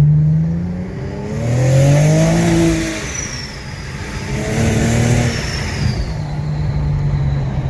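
A car engine revving as it accelerates: its pitch climbs and drops several times, as with gear changes. Twice a thin high whine glides downward.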